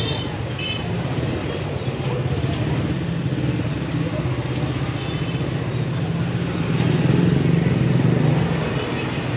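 Small motorcycle engine running steadily at low speed, a little louder about seven seconds in, with faint street chatter behind it.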